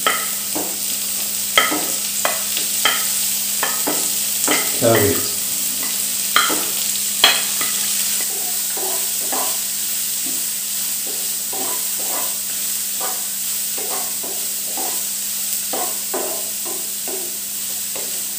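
Vegetables stir-fried on high flame in a nonstick wok: a steady sizzle, with a spoon knocking and scraping against the pan. A few sharp knocks come in the first seven seconds, then steadier stirring strokes about once or twice a second.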